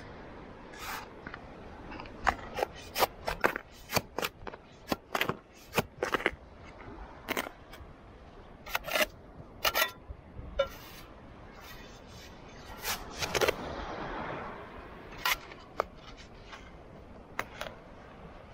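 Steel shovel blade digging into damp, clumpy beach sand: a string of irregular sharp scrapes and crunches as the blade bites in and lifts clods, over a steady background hiss.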